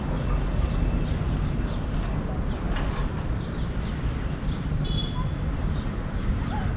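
Outdoor street ambience: a steady low rumble with faint distant voices and a few small high chirps of birds.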